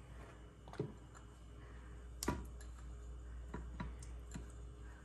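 A few irregular light taps and clicks as cherry tomatoes are set down in a glass baking dish, the loudest about two seconds in, over a steady low hum.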